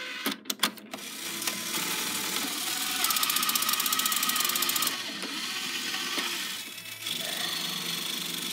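Toy mini claw machine's small motor and gears whirring and rattling as the claw travels and drops to grab, after a few sharp clicks about half a second in. The rattle is loudest in the middle.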